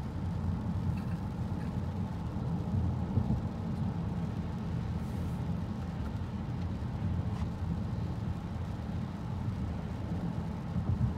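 Cabin road noise in a 2018 Honda Accord Sport 1.5 cruising at about 40 mph on a rain-wet road: a steady low rumble of tyres and drivetrain with a fainter hiss from the water on the road.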